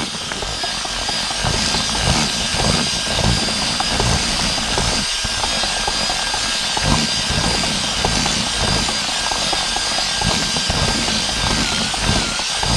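Electric drill with a paddle mixer churning dry fishing groundbait and earth in a plastic bucket: a steady motor whine over an irregular churning of the mix. The motor's pitch sags slightly near the end.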